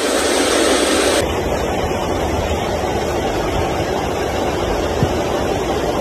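Steady rush of heavy typhoon rain and flowing floodwater, turning duller about a second in.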